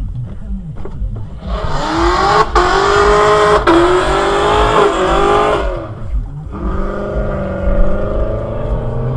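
Camaro SS's 6.2-litre LT1 V8 under hard acceleration, heard from inside the cabin. It rises to a loud, high howl for about four seconds, dropping in pitch at a gear change midway. It then eases off to a lower, steady drone.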